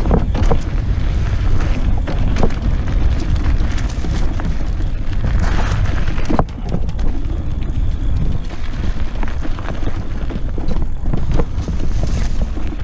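Wind buffeting the microphone as a rider goes fast along a dirt trail on an electric bike, a steady low rumble with knocks and rattles from the bike over bumps, one sharp knock about six and a half seconds in.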